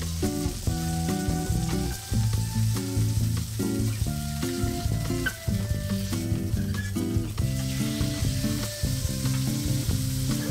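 Thick sirloin steak sizzling steadily as it sears in olive oil in a copper frying pan, with low-pitched background music underneath.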